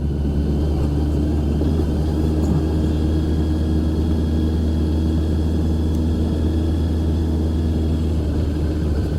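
Honda CBR650R's inline-four engine running steadily under way, with a strong, even low hum. Road and wind noise lie under it.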